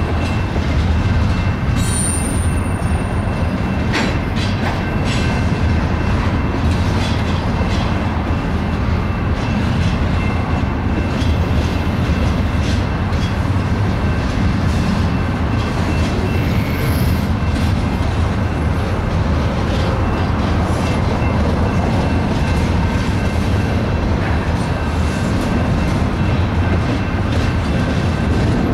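Double-stack intermodal freight train rolling past: a steady rumble of steel wheels on rail, with scattered clicks and a faint high whine.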